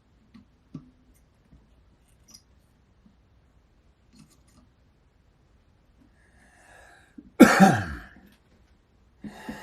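A man coughs once, loud and sharp, about seven and a half seconds in, after a short intake of breath, and starts coughing again at the very end. Before that there are only a few faint clicks.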